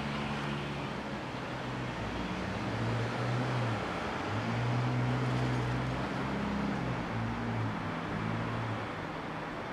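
Street traffic noise: a steady low engine hum from vehicles on the road, with a general urban rumble.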